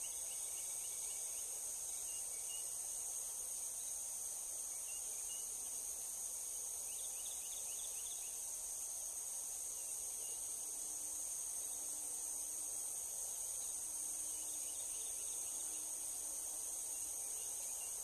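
Steady high-pitched chorus of insects in the marsh and pine woods, unbroken throughout. Short quick series of chirps break through a few times.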